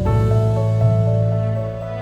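Background music: soft new-age style tune with held notes over a steady low bass.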